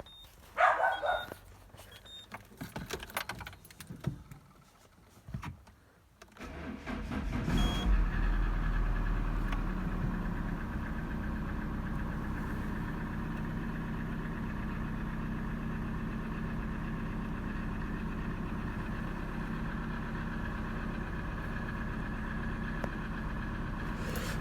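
A few clicks and rattles, then a Peugeot 307 1.6 engine cranks and starts about six seconds in, revs briefly and settles into a steady idle. It idles with the engine knock the owner is recording.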